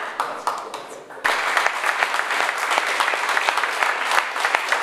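Audience applauding with many hands clapping; the clapping dies down, then comes back in abruptly at full strength about a second in.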